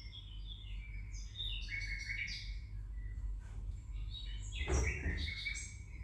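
Birds chirping in quick runs of short high notes over a steady low hum, with one louder thump a little before the five-second mark.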